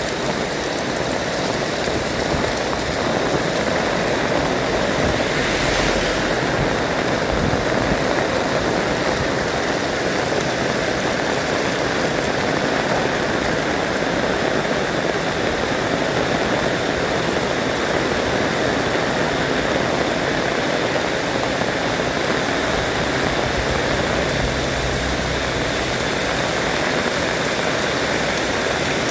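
Heavy rain falling steadily with strong wind, a dense even rushing hiss, with a brief louder rush about six seconds in.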